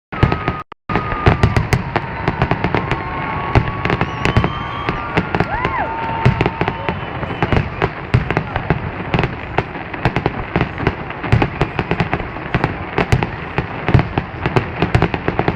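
Fireworks display: a dense, continuous run of bangs and crackling reports, with a few whistling tones over the first half.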